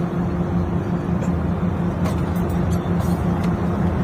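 Steady cabin noise of a private jet cruising at altitude: an even rushing noise with a constant low hum underneath.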